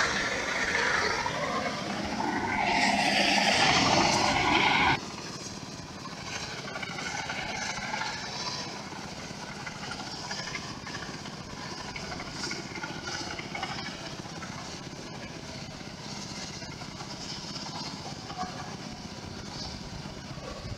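For about the first five seconds, loud wind and engine noise from a moving motorcycle. It cuts off abruptly and gives way to a quieter, steady drone of an 8060 rice combine harvester driving along the road, heard at a distance.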